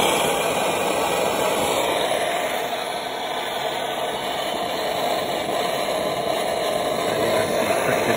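Handheld Rothenberger Multigas 300 gas torch burning with a steady hiss as its flame is played into a cylinder bore, heating a seized engine block to free the pistons.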